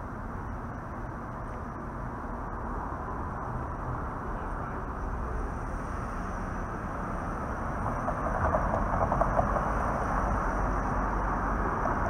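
Vintage PCC streetcar approaching on its tracks. Its running noise grows steadily louder, and a rapid rattle of wheels on rail comes in about two-thirds of the way through.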